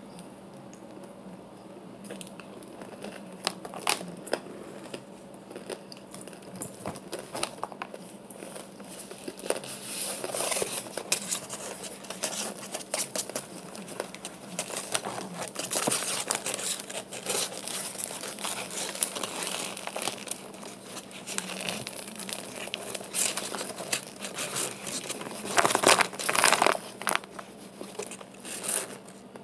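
Paper starch package crinkling and tearing as chunks of compressed starch are broken off and crumbled into a plastic tub, in a run of irregular crackles that grows busier and is loudest near the end.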